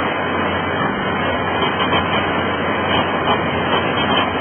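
Fast river rapids rushing in a steady, unbroken wash of whitewater noise.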